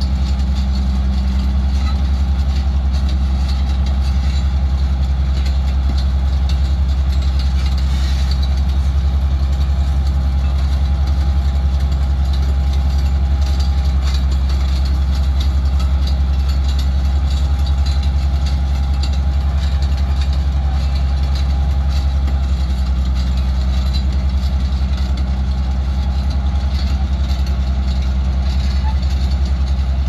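Large crawler bulldozer's diesel engine running steadily as the machine works, a deep, even drone, with a faint thin whine coming and going over it.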